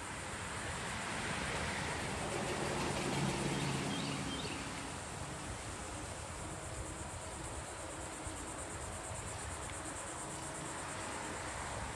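Insects droning in a high, fast-pulsing chorus, stronger in the second half, over a low rumble of wind noise from riding a bicycle.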